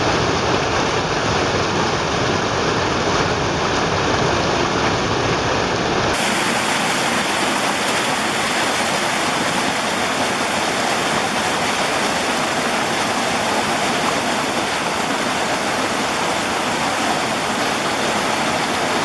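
Running water of a stream rushing steadily over a small falls. About six seconds in the sound changes abruptly to a brighter hiss with less low rumble.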